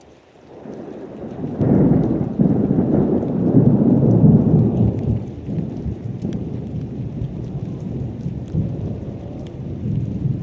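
A long roll of thunder that builds over the first two seconds, is loudest around four seconds in, then rumbles away slowly, over steady rain.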